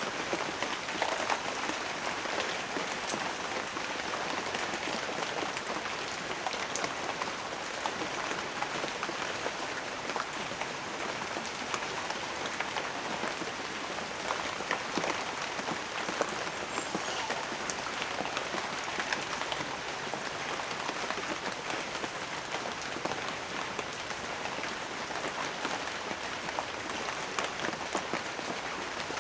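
Steady rain, with drops pattering on a hard surface in an even, unbroken stream.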